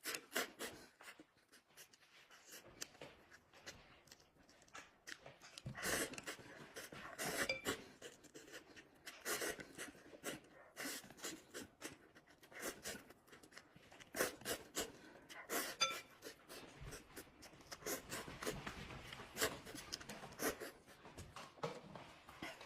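Close-miked eating of instant noodles: irregular slurps, chewing and lip-smacking with heavy breaths between mouthfuls.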